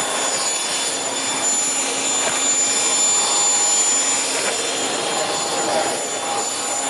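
Numatic Henry Petcare canister vacuum cleaner running steadily: a rush of air with a steady high whine.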